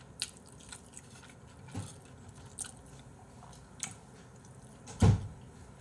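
Close-up eating sounds of a person biting and chewing fried chicken, with scattered small clicks and one louder thump about five seconds in.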